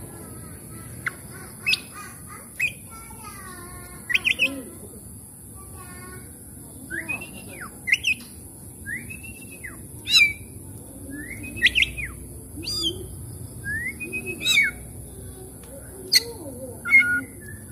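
Oriental magpie-robin singing: a string of separate notes with pauses between, sharp squawks and chips at first, then arched, sweeping whistles from about seven seconds in.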